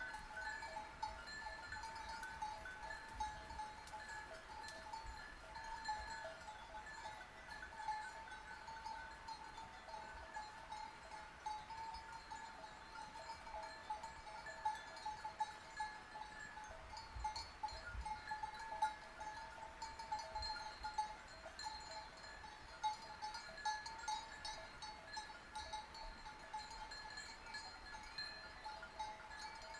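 Sheep bells clanking continuously, many bells ringing irregularly at once with a steady jangle.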